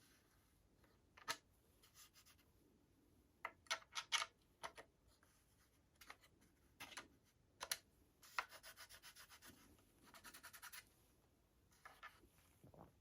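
Parts of an airsoft electric gun being handled: scattered sharp clicks and knocks, then a quick run of evenly spaced clicks, about a dozen a second, a little past the middle, followed by a short rasping scrape.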